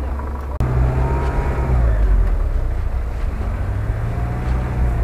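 Four-wheel-drive SUV engines running under load and revving while driving through snow and mud, with a brief break in the sound about half a second in.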